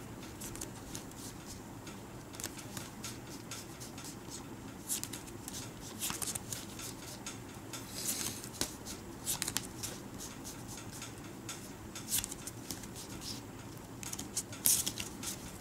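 A deck of Bicycle Tragic Royalty playing cards being spread through the hands and sorted, with faint, irregular clicks and slides of card against card.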